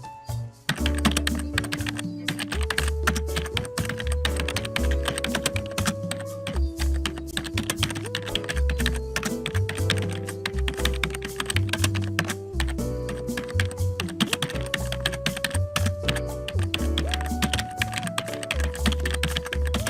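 Computer keyboard typing sound effect: rapid, continuous keystroke clicks starting about a second in, over background music with a bass line and a melody stepping between held notes.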